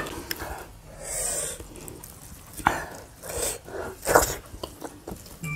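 Close-up eating sounds: fingers mixing rice and curry on metal plates, and a mouthful being eaten, with scattered short sharp clicks.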